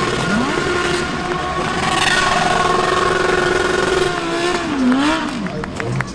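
DTM race car engine held at high revs while spinning donuts, over a steady rushing noise. Its pitch sags and climbs back about four seconds in, with sharp cracks near the end.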